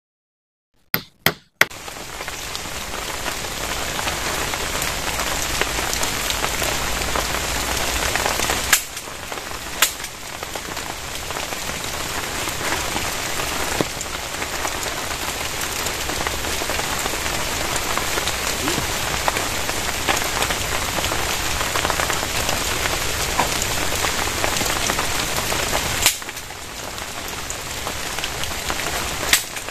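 Heavy rain pouring steadily, starting about a second in after a few sharp clicks, with several abrupt shifts in level.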